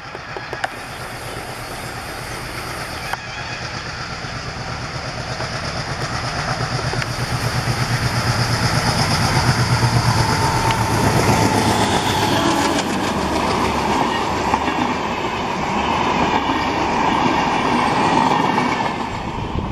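ALCO diesel locomotive passing at speed with a passenger train. The engine runs loud and grows as it nears, loudest about halfway through. Wheels then clatter over the rail joints as the coaches roll by.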